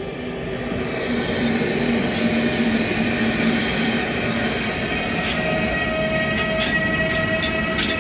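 PKP Intercity passenger train behind a Siemens electric locomotive rolling slowly past, getting louder as the locomotive draws level. A steady high squeal from the running gear sets in about halfway through, with sharp clicks near the end.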